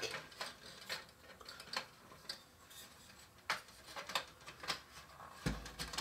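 Plastic toy silverware clicking and clattering as it is dropped into the plastic silverware cup of a Kenner Easy Wash toy dishwasher rack: light, scattered taps at irregular intervals, with a low bump near the end.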